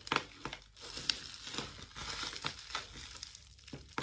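Plastic cookie wrapper crinkling and crackling irregularly as it is handled in the hands.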